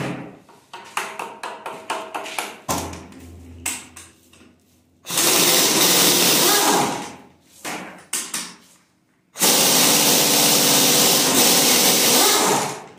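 A power wrench runs in two long bursts, of about two and a half and three and a half seconds, loosening bolts on the engine's cylinder head. Before the first burst there are light clicks and knocks of tools on metal.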